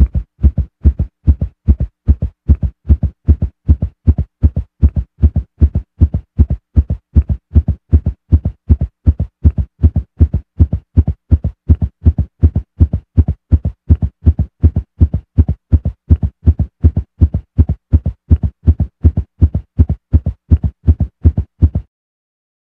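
Heartbeat sound effect: steady, evenly paired low thumps (lub-dub) in a regular rhythm, cutting off abruptly near the end.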